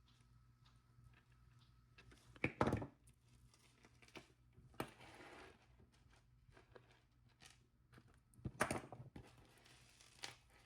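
Small handling sounds of jewelry-making: a few light clicks and knocks as pliers, a jump ring and beads are worked at the table, with a short rustle in between. The loudest come about two and a half seconds in and again near nine seconds.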